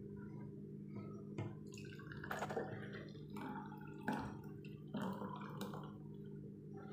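Thick milkshake pouring from a blender jar into a glass, with several soft splashes and drips, over a steady low hum.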